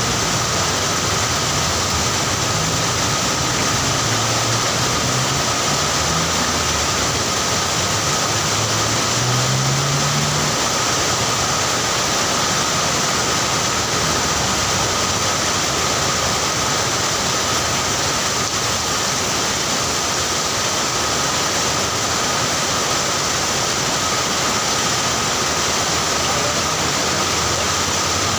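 Heavy rain pouring steadily, a dense even hiss, with a low hum under it in the first ten seconds that rises in pitch near the end of that stretch.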